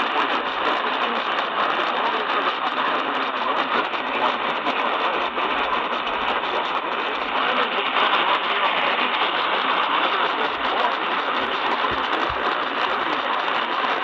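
Steady hiss and static from a portable radio's speaker, with no clear programme audio.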